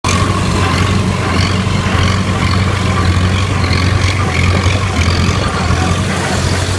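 Minneapolis-Moline M670 Super tractor engine running steadily under load while driving a small square baler, with a constant low hum.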